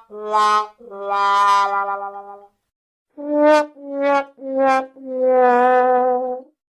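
Sad trombone 'wah wah wah waaah' comedy sound effect, played twice. First comes the end of one phrase, a short note and then a long lower one. After a brief pause there is a second phrase of three short notes stepping down and a long held last note.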